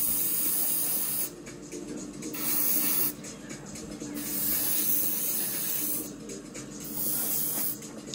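Paint being sprayed onto a plastic scale-model submarine hull, a hiss coming in four bursts of one to two seconds each with short breaks between, over a steady low hum.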